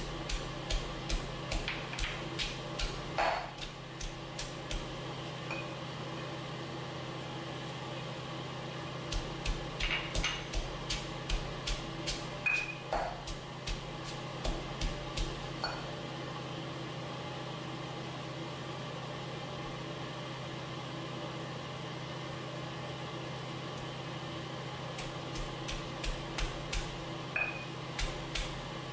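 Stone pestle pounding fresh lemongrass and aromatics in a granite mortar: runs of sharp thuds at about three strikes a second, in three bursts with a long pause in the middle. A steady low hum runs underneath.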